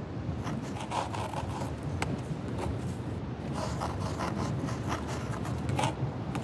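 Drawing strokes scratching on paper, several short strokes one after another, over a steady low rumble.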